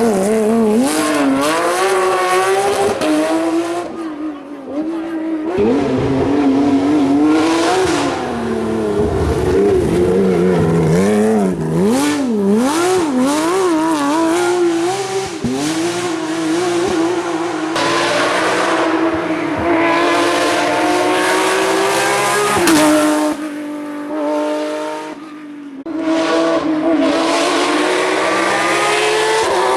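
Porsche 911 GT3 Cup's flat-six engine driven hard, its pitch climbing and dropping again and again through gear changes and corners. The revs fall away briefly about four seconds in and again near the end, as the throttle is lifted.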